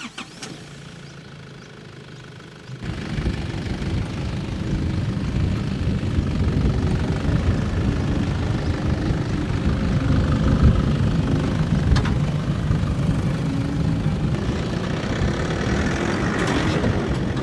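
Nissan pickup's engine running at low speed, labouring as the truck crawls over dirt mounds; it starts as a quieter hum and gets much louder about three seconds in, with a single sharp click about twelve seconds in.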